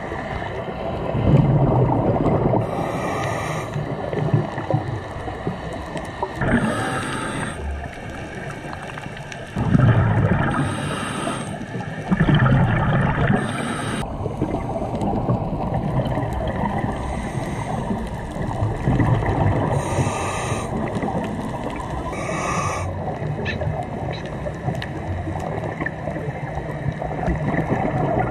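Scuba diver breathing through a regulator underwater. A short high hiss on each inhalation alternates with a bubbling rumble on each exhalation, the cycle repeating every three to four seconds.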